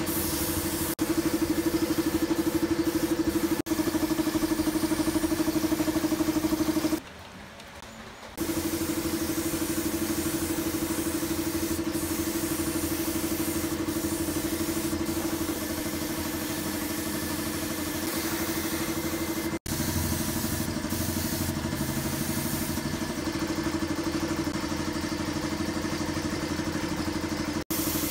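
Air compressor motor running with a steady hum, under the hiss of air from a handheld spray gun spraying paint. The sound drops away for about a second and a half around seven seconds in.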